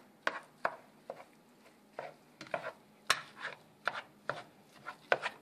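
Raw ground beef being squeezed and kneaded by hand with chopped vegetables and spices in a pot: short, irregular squishes, two or three a second.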